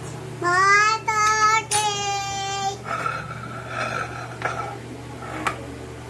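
A toddler's high-pitched sing-song vocalising: a loud, drawn-out 'aaah' in three held notes over about two seconds, then softer babbling. A steady low hum runs underneath, and there is a single sharp click near the end.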